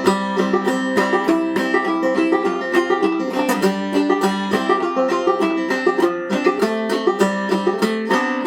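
Five-string banjo in Double C tuning (gCGCD) played clawhammer style, a steady run of plucked notes of an old-time tune in C. The playing stops at the very end on a final chord that is left ringing.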